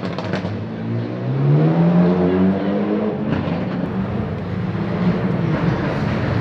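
Rally car engine accelerating away hard, its pitch rising over a second or two and then holding at a steady drone, with a few short crackles from the exhaust about three seconds in.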